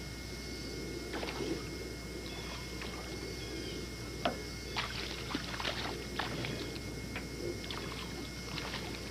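A hooked fish thrashing at the water's surface beside a boat: a run of irregular splashes, the sharpest about four seconds in. Steady hiss and hum from the VHS camcorder lies underneath.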